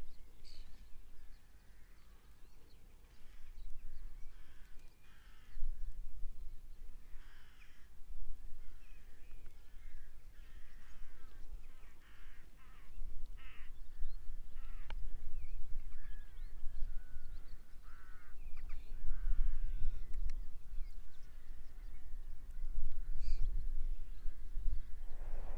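Crows cawing repeatedly, many short harsh calls one after another, over a low rumble that rises and falls.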